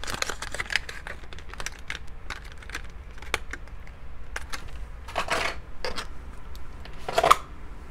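Makeup products and packaging being handled: scattered small clicks and taps, with a louder rustling scuff about five seconds in and another just after seven seconds.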